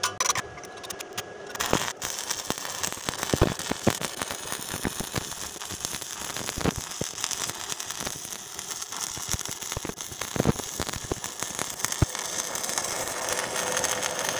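Stick-welding arc from a Wert Mini 200 inverter welder burning an ANO-21 electrode. A few separate crackles as the arc is struck, then a steady crackling sizzle full of sharp pops that breaks off at the end. The machine holds the arc through the electrode without tripping into overload protection.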